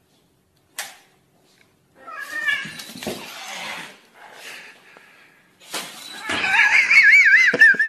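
A cat hissing, then giving a loud, wavering yowl in the last two seconds.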